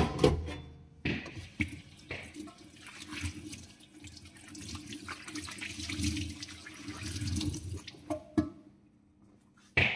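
Water running into a stainless steel sink, with a few clicks and knocks; the water stops about eight and a half seconds in.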